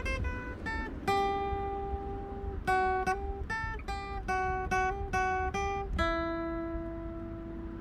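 Acoustic guitar playing a slow single-note melody: a long held note, a run of picked notes about two a second, then another long held note.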